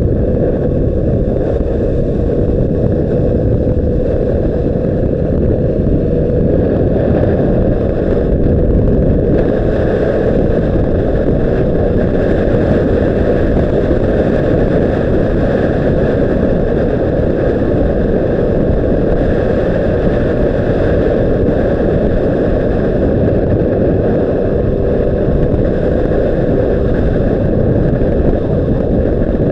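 Honda CBR600RR inline-four engine running at a steady, even pace with its note wavering only slightly, heard under heavy wind noise on the action camera's microphone.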